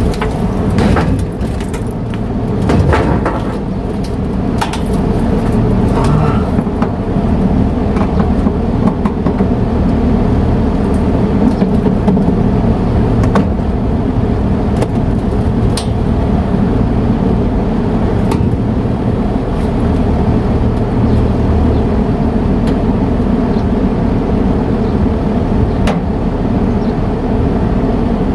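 Air-conditioner outdoor units running with a steady low hum, with a few sharp clicks and knocks in the first few seconds.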